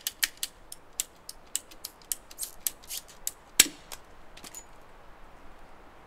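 Red ratcheting pipe cutter clicking sharply as it is squeezed through flexible tubing: a dozen or so separate clicks over about four seconds, the loudest about three and a half seconds in.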